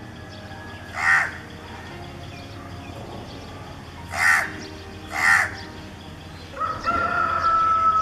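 House crow cawing: three short, harsh caws, about a second in, at four seconds and again a second later. Near the end a longer, drawn-out steady tone sets in.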